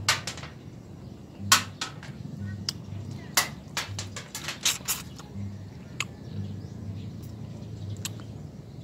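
Close-up mouth sounds of eating a ripe sugar apple: wet lip smacks and sucking clicks as the soft pulp is eaten off the seeds, coming irregularly, with a cluster in the middle.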